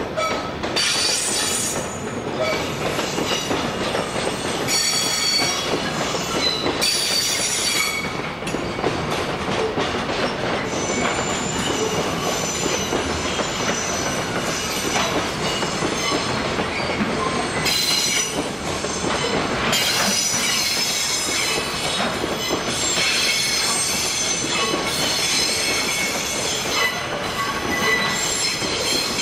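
Container freight train hauled by an EH500 electric locomotive rolling along the tracks, its wheels squealing at a high pitch over a steady rolling rumble. The squeals come and go in several tones.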